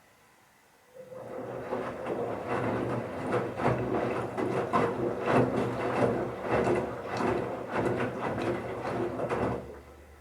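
Bauknecht Super Eco 7615 washing machine turning its drum in a wash phase, with a steady motor hum and irregular thuds of towels tumbling and dropping inside. It starts about a second in and stops shortly before the end, the usual turn-then-pause rhythm of a wash cycle.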